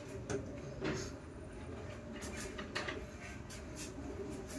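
A glass sheet being handled on a worktable: a few sharp clicks and scrapes of glass against the table and tools, over a steady low hum.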